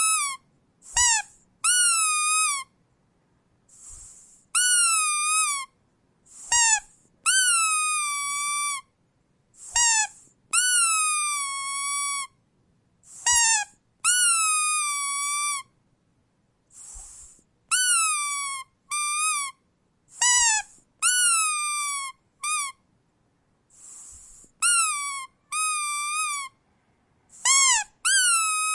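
Rubber squeak toy squeezed and released over and over. Each squeeze gives a whistly, sad-sounding squeak that bends up briefly and then sags in pitch, some short and some drawn out over a second or more. Short airy hisses come between some squeaks as the toy refills.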